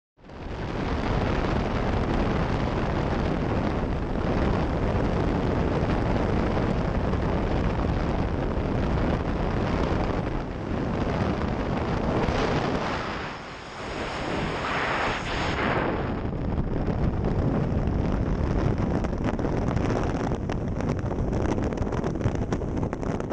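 Loud, steady rush of freefall wind buffeting the camera's microphone during a tandem skydive, briefly easing about halfway through.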